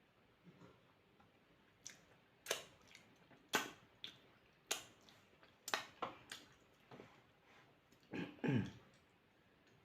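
Close-miked eating sounds: a run of sharp, wet mouth smacks while chewing, roughly one a second, then near the end a short low voiced sound that falls in pitch, like a gulp or burp.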